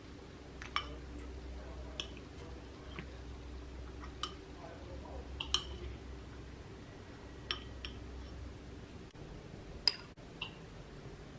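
Light clinks and taps of hard objects being handled, about nine spread out irregularly, each with a short ring, over a steady low hum.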